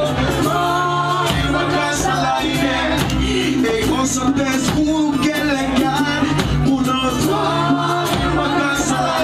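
Live reggae band playing loudly with drums, bass and a steady beat, and a man singing lead into a microphone.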